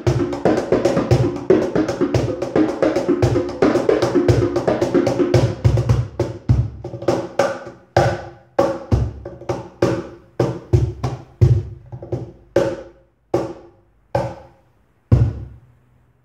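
Cajón and conga played by hand: a busy pattern of slaps and deep bass strokes, thinning after about six seconds into single strokes that come slower and slower and stop about a second before the end.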